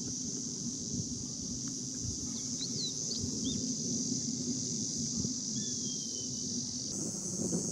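Outdoor ambience of wild birds calling, a few short chirps and thin falling whistles, over a steady high hiss and a low rumble.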